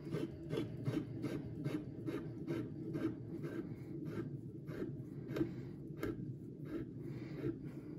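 Steel torsion spring of a Standard Gripper hand gripper creaking as a run of short dry clicks, about three a second, while the handles are slowly squeezed under a rising load of about 30 to 60 kg. The creak comes from the grippers being unlubricated.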